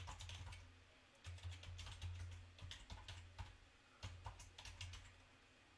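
Faint typing on a computer keyboard: quick keystrokes in short runs separated by brief pauses.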